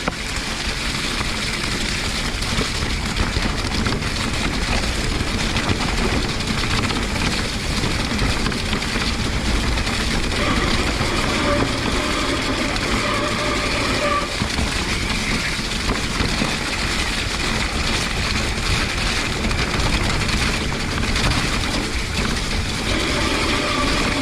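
Electric mountain bike descending a wet, rocky, muddy trail, heard from a bike- or helmet-mounted action camera: continuous wind buffeting and rumbling, rattling tyre and trail noise. A faint whining tone comes in briefly about ten seconds in and again near the end.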